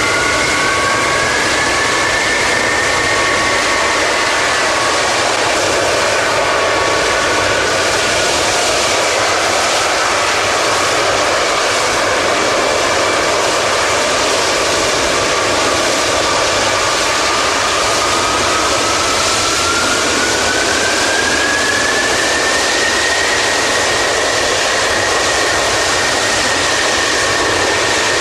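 Antonov An-225 Mriya's six D-18T turbofan engines running close by: a loud, steady jet roar with a turbine whine that slides down in pitch in the first few seconds and rises again past the middle.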